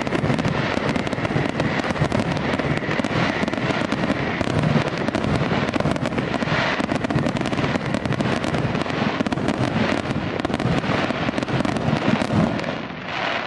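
Fireworks display: a dense, continuous barrage of bursting shells and crackling, fading out near the end.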